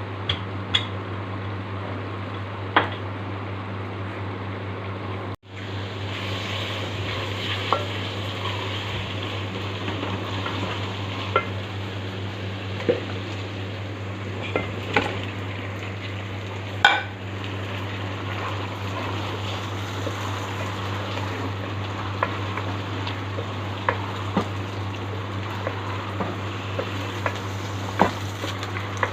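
Food sizzling in oil in a cooking pot while a spoon stirs it, clicking against the pot now and then. A steady low hum runs underneath, and the sound cuts out for an instant about five seconds in.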